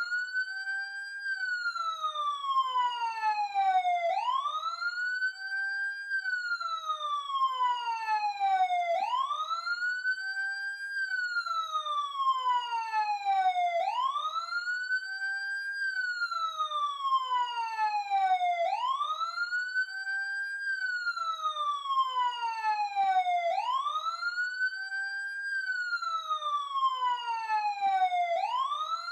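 Emergency siren wailing: each cycle rises quickly, then slides slowly back down, repeating about every five seconds.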